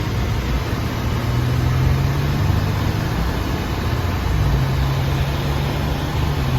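Car being driven: a steady engine hum under a continuous rush of road noise.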